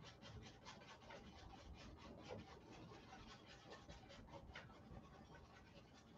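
Faint scratching of a long-handled brush dabbing oil paint onto stretched canvas, several short strokes a second.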